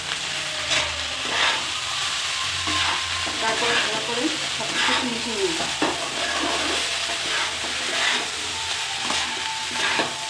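Steel spatula scraping and knocking against a non-stick kadai as rice with vegetables is stirred and tossed, the strokes coming irregularly every second or so. Under them runs a steady sizzle of the rice frying in ghee.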